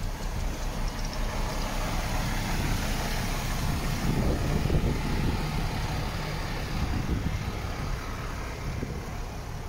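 MAN TGX 41.540 truck's 540 hp straight-six diesel engine idling steadily, a little louder when the cab side is passed about four seconds in, with wind noise on the microphone.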